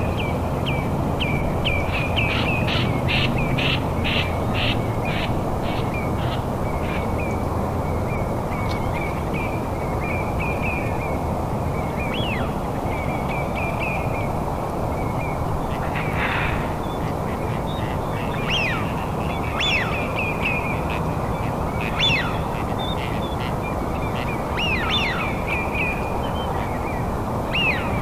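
Birds calling in a forest at night: a steady high trilling, with a quick run of evenly spaced harsh calls a couple of seconds in and scattered sharp calls later, over a constant low rushing background noise.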